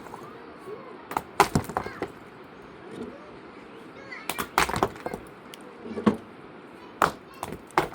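A series of sharp, irregular cracks and knocks, several close together in quick clusters, with short gaps between.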